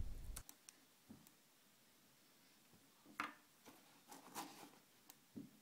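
Near silence, broken by a few faint soft rustles and taps as rubber straps and plastic mounts are lifted out of a foam-lined cardboard box, about three seconds in and again near the end.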